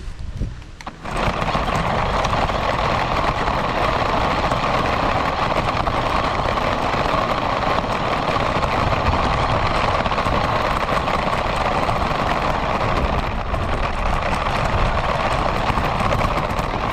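Radio-controlled car driving, its motor and wheels making a steady, loud running noise close to the on-board camera's microphone, starting up after a quieter first second.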